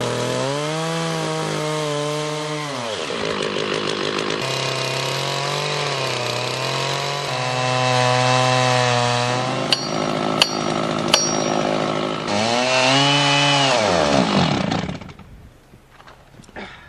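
Two-stroke chainsaw cutting a tree. The engine revs high, drops off about three seconds in and revs up again several times, and three sharp cracks come about ten to eleven seconds in. The saw winds down at about fifteen seconds.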